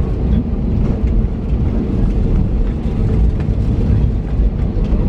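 Cabin noise of an Airbus A321neo taxiing: a steady low rumble from the engines at taxi power and the wheels rolling, with a steady hum over it.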